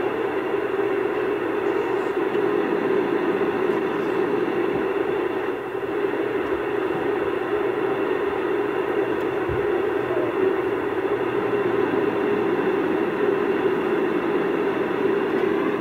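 Steady drone of an airliner cabin in flight, an even rushing noise with no change, heard played back through a screen's speaker.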